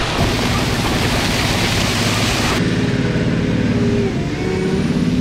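John Deere four-wheel-drive tractor's diesel engine pulling a disc tillage tool through soil and corn stalks, the discs making a dense rushing noise over the steady engine hum. About two and a half seconds in the rushing drops away and the engine's drone stands out as the tractor passes.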